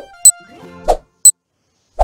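Countdown timer sound effect: a water-drop bloop once a second, each followed by a short high ding, over faint light music.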